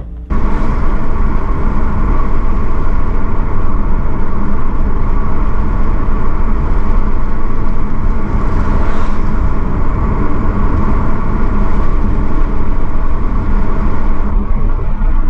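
Car driving: steady engine and road noise that starts abruptly just after the opening.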